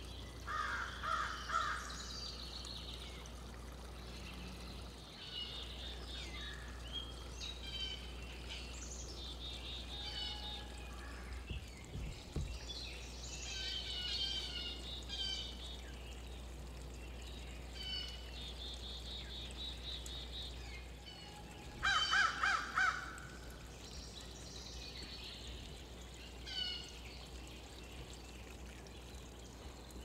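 Wild backyard songbirds chirping and twittering on and off throughout. A louder, harsh, rattling call comes about a second in and again more strongly around two-thirds of the way through. Under it runs a steady rushing background noise.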